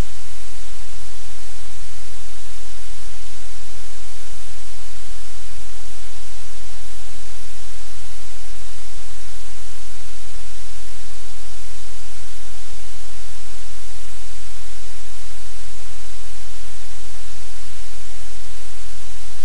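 Loud, steady static hiss with a low electrical hum underneath, unchanging throughout; no puppy or room sounds stand out above it.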